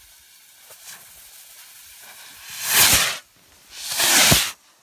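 Firework rockets launching: a faint fuse sizzle, then two loud hissing whooshes about a second apart, each ending in a short pop.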